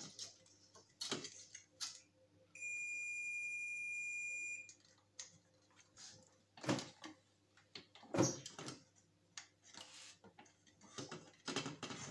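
Multimeter continuity beep: one steady high tone for about two seconds, a few seconds in, as the probes test a hair dryer's bridge diode, a reading the repairer takes to look like a short circuit. Scattered short clicks and handling noises of probes and parts.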